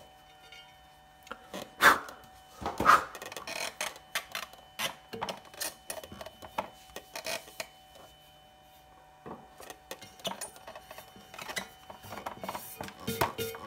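Leather-hard clay teapot parts being handled, set down and fitted together on a metal pottery wheel head: a string of light clicks and knocks, the two loudest about two and three seconds in, over a faint steady hum.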